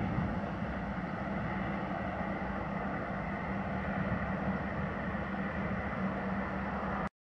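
Steady outdoor background noise with a low, steady hum running under it, cutting off abruptly near the end.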